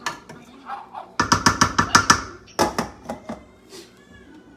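Clattering of kitchenware: a quick run of about eight sharp knocks in a second, then one more knock.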